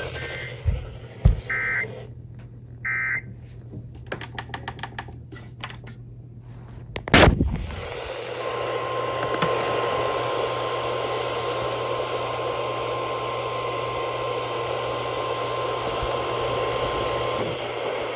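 Weather radio reception over static: two short warbling data bursts, a run of rapid clicks and a sharp pop, then a hiss carrying a steady single warning alarm tone for about nine seconds, typical of the SAME header and 1050 Hz alert tone that open a NOAA Weather Radio warning.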